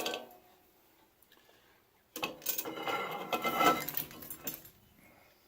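Steel pieces clattering and clinking against metal with a bright ring, in two bouts: a short one at the start and a longer one from about two seconds in.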